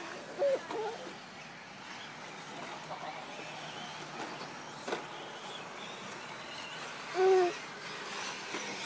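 Electric short-course RC trucks racing on a dirt track, their motors giving a faint, wavering high whine. A short pitched call comes about half a second in, and a louder, steady one near the end is the loudest sound.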